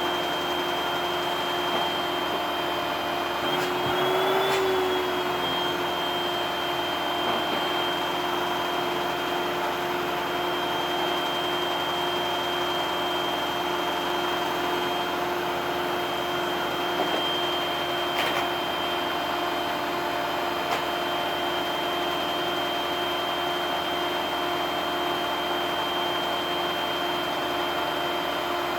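Vacuum cleaner motor running steadily with a high whine over a rush of air. About four seconds in, its pitch rises briefly and it gets a little louder, then it settles; there are a couple of faint clicks later on.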